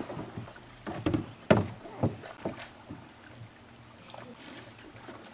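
Kayak paddling with a run of four or five sharp knocks, the loudest about a second and a half in, then quieter.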